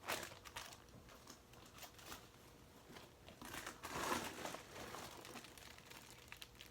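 Crinkly plastic packaging of a squishy being handled: soft intermittent rustling and crumpling, with a louder stretch of crinkling a little past the middle.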